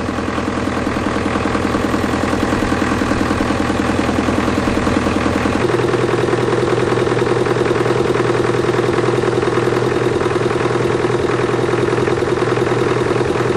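John Deere 2010 tractor's four-cylinder diesel engine idling steadily while it warms up after a cold start. About six seconds in, its tone changes abruptly.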